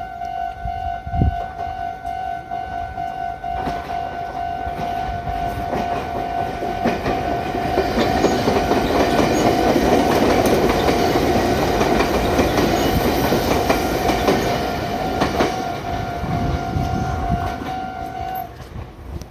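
Japanese level-crossing warning bell ringing steadily with a repeating tone while a Meitetsu 5700 series electric train passes over the crossing, the train's running noise building to its loudest mid-way with wheels clacking over the rail joints. The bell cuts off near the end as the crossing clears.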